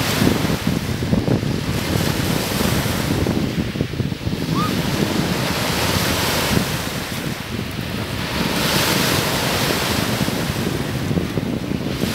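Small lake waves washing and breaking against the shore, the hiss swelling and fading every few seconds, with wind buffeting the microphone as a constant low rumble.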